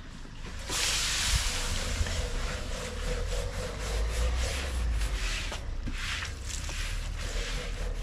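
Wind buffeting the microphone: a low rumble with a rushing hiss that comes up about a second in and keeps going.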